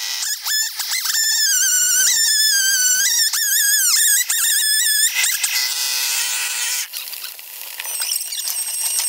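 Chainsaw cutting a burl off a cherry log: a high, wavering whine from the saw running at full throttle, its pitch wobbling as the chain bites into the knotty wood. It stops about five seconds in.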